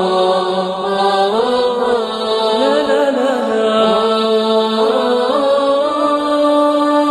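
Solo male voice chanting a slow, ornamented melody, holding long notes and moving between them in gliding runs, without pauses.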